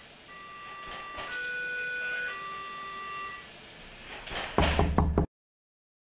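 A two-tone siren sounding, switching between a higher and a lower note about once a second. Near the end a loud, rough noise breaks in and cuts off suddenly.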